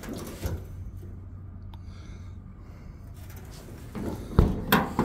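Service-body compartment door's flush T-handle latch being worked by hand, with a sharp clack about four seconds in and a couple more knocks just after as the latch releases and the door moves. A low steady hum runs underneath.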